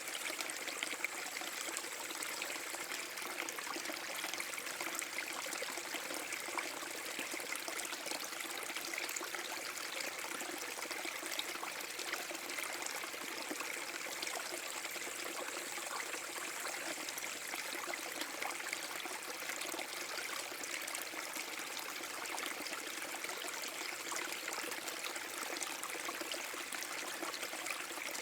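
Small waterfall on a forest brook: water splashing and trickling over rocks, a steady, even flow.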